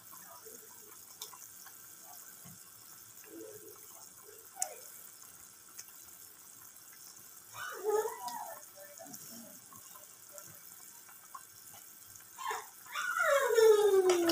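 Faint bubbling of a pot of instant noodles boiling, with a few light clicks from knife work. About eight seconds in a voice sounds briefly, and near the end a person's loud voice calls out with a drawn-out falling pitch.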